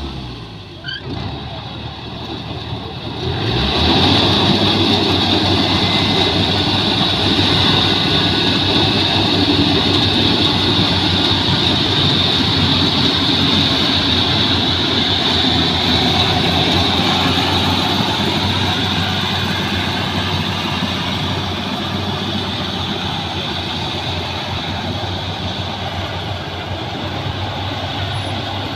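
Yanmar YH850 rice combine harvester running, its engine and threshing machinery making a steady dense noise with a high whine. The noise is lower for the first few seconds, swells about three and a half seconds in, then eases off slowly toward the end.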